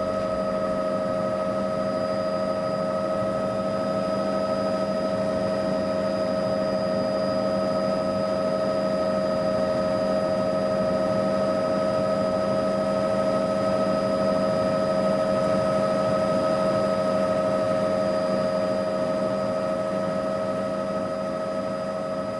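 Helicopter in steady flight, heard from inside the cabin: a constant engine and rotor noise with several steady whining tones over it.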